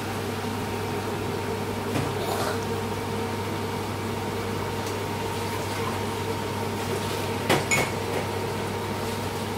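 Potato and red lentil pakoras deep-frying in a pan of hot oil, sizzling steadily over a constant low hum. A faint knock about two seconds in and two sharp clicks about seven and a half seconds in.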